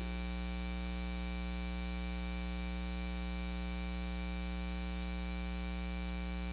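Steady electrical mains hum and buzz from the sound system, a low drone with many overtones that does not change.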